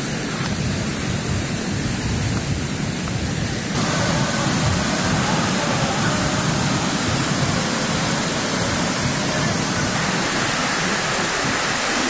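Steady rush of the Pailón del Diablo waterfall, a dense hiss of falling water. It gets suddenly louder and brighter about four seconds in.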